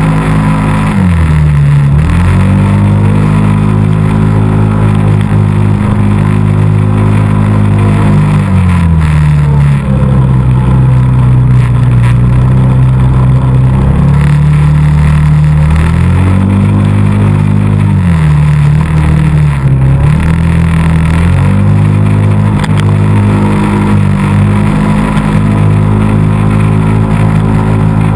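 ATV engine running loud and hard, its pitch dropping and climbing again several times as the throttle is eased off and opened back up.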